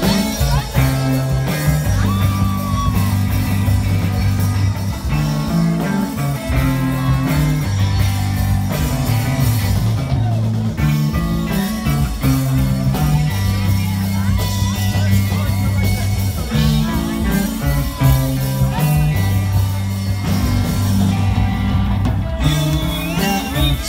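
A live rock band playing: guitars over low, stepping bass notes and steady drums, with a singer's voice.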